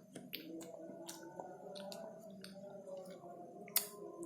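Wet mouth clicks and smacks of a child eating close to the microphone, the sharpest about three-quarters of the way through, over faint steady tones in the background.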